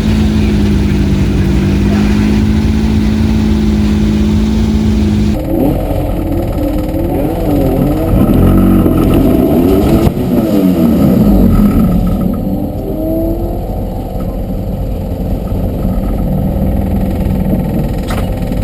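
Supercharged BMW flat-twin engine of a Citroën 2CV hillclimb car running steadily, then, after an abrupt change about five seconds in, revving up and down repeatedly for several seconds before settling to a steadier run.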